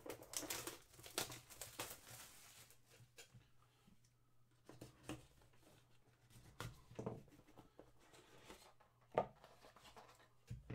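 Faint crinkling and tearing of packaging as a trading-card box is opened, then light taps and clicks of cardboard being handled, with one sharper tap about nine seconds in.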